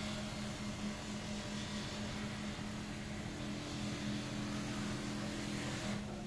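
Lathe motor running steadily with a hum while a metal pot spins on it and a hand tool is held against it; a second, slightly higher tone joins about halfway through and drops out near the end.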